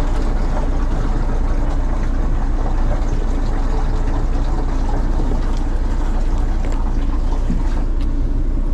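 Steady low hum and rushing noise of a machine running without change.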